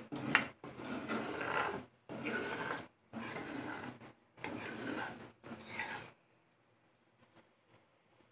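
A steel spoon stirring thick curry gravy in a pan, scraping and clattering against the pan in repeated strokes about once a second; it stops about six seconds in.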